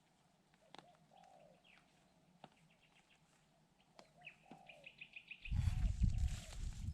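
Birds calling, with repeated arched low notes and a fast run of high chirps. About five and a half seconds in, a loud, low, gusty rumble sets in over them.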